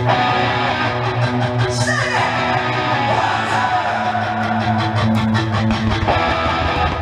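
Music with a steady beat.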